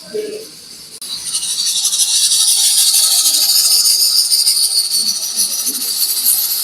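Hot pan or pot sizzling in a restaurant kitchen: a loud, steady hiss that starts suddenly about a second in.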